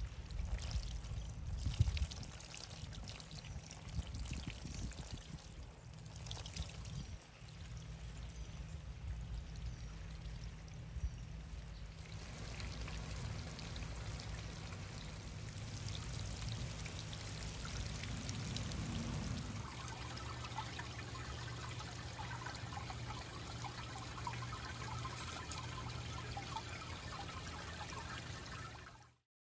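Small garden fountain running on a submersible pond pump: water from a waterbell nozzle, and in turn from a water-spray nozzle, splashing and trickling steadily onto a bed of white stones. The sound changes in texture about 12 seconds in and again near 20 seconds, and cuts off suddenly at the end.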